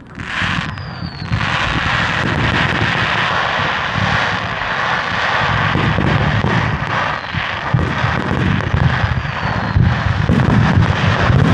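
Fireworks barrage: shells launching and bursting in rapid succession, their booms and crackling running together into a continuous rumble that starts suddenly and grows louder toward the end. A short falling whistle about a second in.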